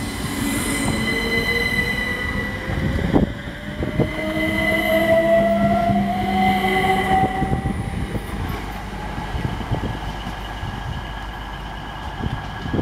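Class 377 Electrostar electric multiple unit pulling away from the platform, its traction motors giving a whine that rises steadily in pitch as it accelerates. A couple of sharp clicks from the wheels over rail joints come about three and four seconds in, and the sound fades as the train draws away.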